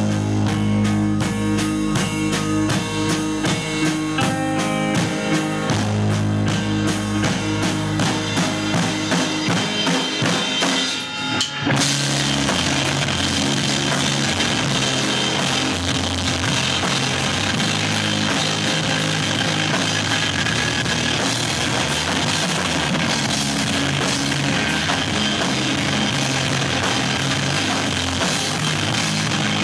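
Live rock band: a drum kit playing with guitar in a steady rhythm. About eleven seconds in the music breaks off for a moment, then comes back denser, with a constant wash of cymbals over it.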